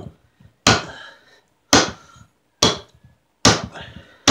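Hatchet chopping into a wooden block: about five sharp chops, roughly one a second, each with a brief ring. The hatchet is a reconditioned axe head on a cut-down axe handle.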